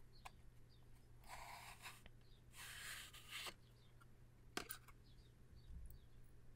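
Cardboard matchbox being opened by hand: two soft scraping swishes as the inner tray of matches slides out of its sleeve, then a sharp tap about four and a half seconds in. Faint bird chirps sound in the background.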